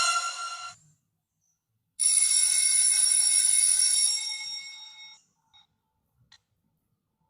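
Comedy sound-effect clips played back in a video editor: a tonal effect that cuts off about a second in. About two seconds in, a ringing sound with several steady high tones starts abruptly and fades out over about three seconds, followed by a few faint clicks.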